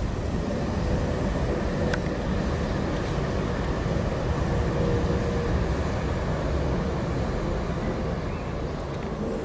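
Steady low rumble of background noise with a faint steady hum, and a single sharp click about two seconds in.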